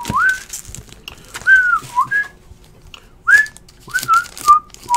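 A person whistling a tune in short notes that slide up and down, with light rustling and clicking of trading cards and pack wrappers being handled.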